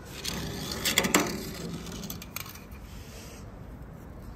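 Small toy cars clinking and clattering against hard surfaces, with a cluster of sharp clicks about a second in and a few lighter clicks after.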